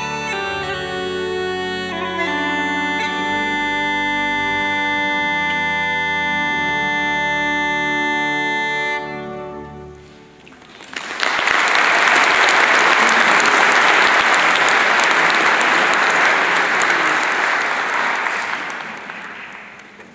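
Uilleann pipes sounding the closing notes of a tune over their steady drones, which die away about ten seconds in. An audience then applauds loudly for several seconds, the clapping fading out near the end.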